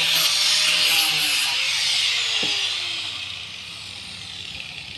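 Electric angle grinder running at full speed, then switched off about halfway through and winding down to a quieter whir.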